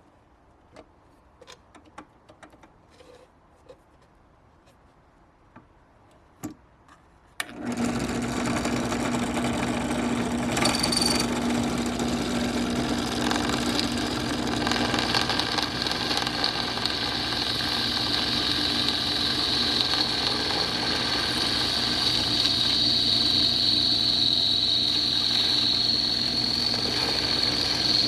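A few faint clicks, then a motor-driven machine starts abruptly about seven seconds in and runs steadily and loudly, with a constant hum and a high whine.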